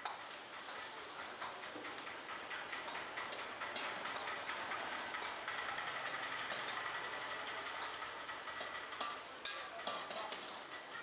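Metal spatula scraping and clinking against a wok in quick repeated strokes as fried rice is stir-fried, over a steady sizzle of frying.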